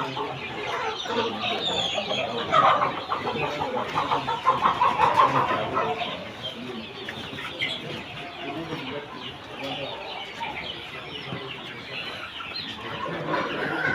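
A large flock of chickens clucking and calling over one another, busiest and loudest in the first half, then settling to a softer chatter.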